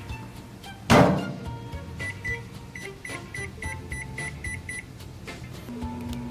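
Microwave oven being set going: a thump about a second in, then a run of about ten quick, evenly spaced keypad beeps, and near the end a steady hum sets in as the oven starts running.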